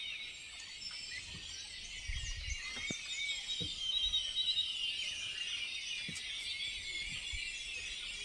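Dawn chorus of many small birds chirping at once, a dense overlapping chatter of short high chirps, busiest around the middle.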